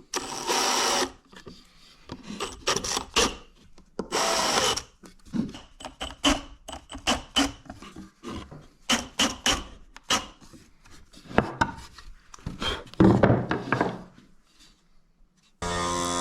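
Woodworking tool sounds on wood: two short runs of a power tool, each about a second long, then a string of quick knocks and scrapes of wood pieces being worked and handled. Music starts near the end.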